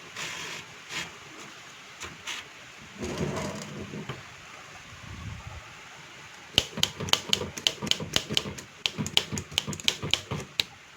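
Keys of a vintage Godrej manual typewriter being struck: a quick run of sharp typebar strikes, about five a second, starting about six seconds in and stopping shortly before the end. Before that, a few scattered clicks and knocks from the machine's mechanism.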